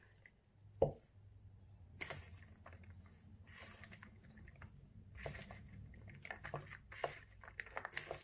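Popcorn coated in wet resin being stirred with a wooden stick and worked by a gloved hand in a small plastic bowl: soft, sticky, irregular rustling and clicking from about two seconds in, after a single knock just under a second in.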